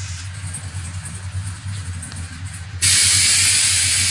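Pickup truck's air-ride suspension letting air out of its bags: a sudden loud hiss starts about three seconds in and slowly fades, over a steady low hum.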